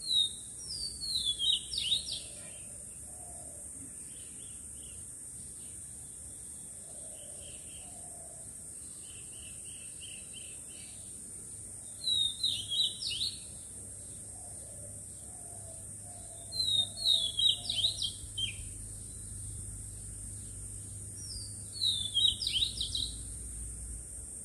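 A songbird singing four short, fast, chattering phrases spaced several seconds apart, with softer chirps in between, over a steady high-pitched drone.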